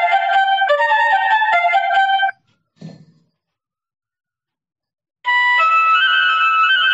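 Electronic doorbell chime with a sound chip playing a whistle-like melody of single stepping notes. It stops a couple of seconds in, there is a brief low knock, and after about two seconds of silence a new melody starts near the end.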